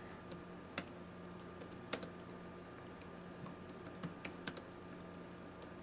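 Faint typing on a computer keyboard: irregular, sharp key clicks with a short flurry about four seconds in, over a faint steady hum.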